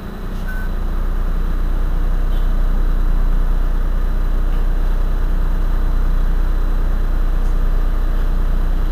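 Engine of a Heuliez GX 127 city bus idling steadily, heard close behind the rear engine compartment with a deep, even rumble.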